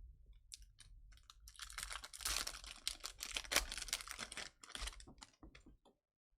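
Hands handling Bowman Chrome trading cards and their foil pack: a run of quick clicks and crinkling, busiest for a few seconds in the middle.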